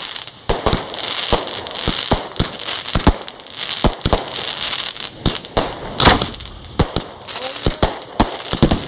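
Fireworks display: a rapid, irregular series of bangs from small aerial bursts, several a second, over continuous crackling and hiss, with the loudest bangs about three and six seconds in.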